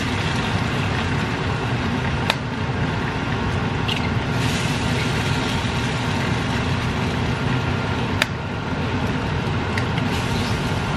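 Steady whir of a kitchen stove's range hood fan. Over it come two sharp taps, about two seconds in and again about eight seconds in, as eggs are cracked for frying in a skillet.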